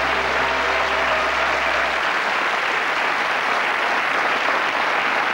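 Studio audience applauding steadily. Sustained low notes of music run under the clapping and cut off about two seconds in.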